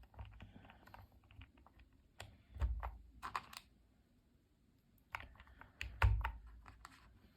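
Sharp plastic clicks and clacks of a mechanical keyboard with Fantasy DVA linear switches being pressed and handled, in three short clusters with a heavier knock in each of the last two.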